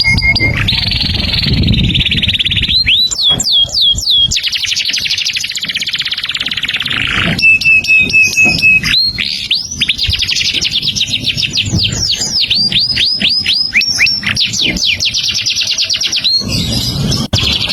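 A songbird singing energetically and without pause, in rapid trills broken by runs of sharp down-slurred whistled notes, and a brief series of evenly repeated notes about halfway through.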